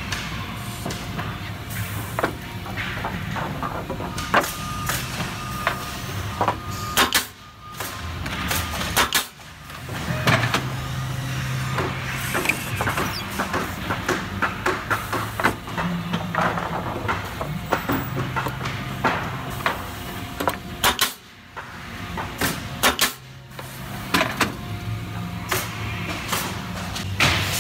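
Spida Extruder wood-framing machine running: a steady motor hum with frequent sharp knocks and clanks as lumber feeds through its clamps and rollers. The hum drops away briefly a few times.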